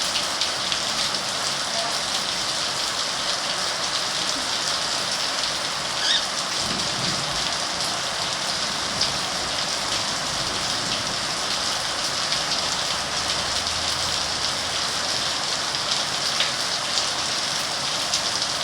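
Steady rain falling, with many small drop clicks throughout. A brief louder sound about six seconds in.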